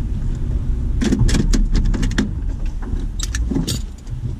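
Low steady rumble of a stopped vehicle, with a quick run of clicks and rattles inside the cab from about a second in. The rumble drops away near the end.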